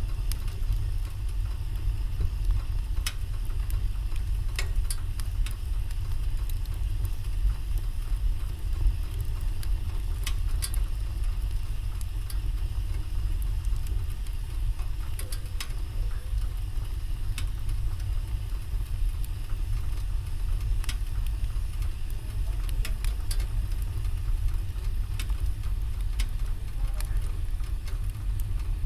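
Wood fire in a fireplace crackling, with sharp pops every second or few seconds over a steady low rumble.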